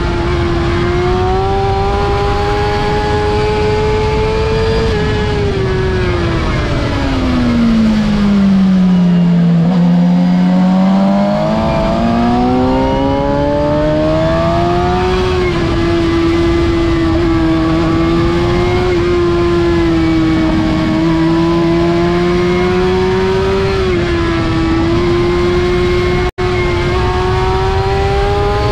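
A 2006 Suzuki GSX-R750's inline-four engine at high revs on a racetrack, heard onboard with heavy wind rush. About five seconds in the revs fall steadily for several seconds as the bike slows, then climb back and hold high through a long corner. The sound cuts out for a split second near the end.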